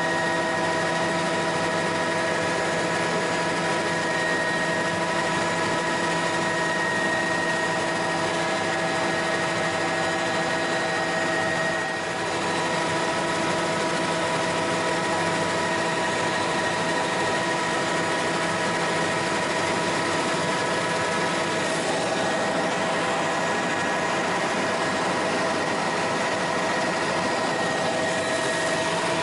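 Bell 206L4 LongRanger helicopter's turboshaft engine and rotor drive running in cruise flight, heard from inside the cockpit: a steady whine and hum made of several fixed tones over a constant rush. The level dips briefly about twelve seconds in.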